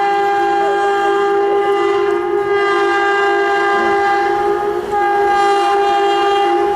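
Horn of an Indian Railways WAG-7 electric locomotive sounding one long, unbroken blast of steady tones, with a brief dip about five seconds in.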